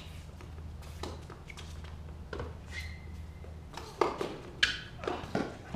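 Tennis balls struck by rackets during a doubles rally: sharp pops spaced about a second apart, coming faster near the end with three in quick succession, the loudest about four seconds in. A steady low hum runs underneath.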